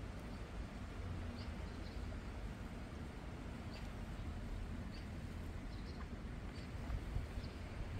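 Scattered short, high chirps of small birds over a steady low rumble of wind on the microphone.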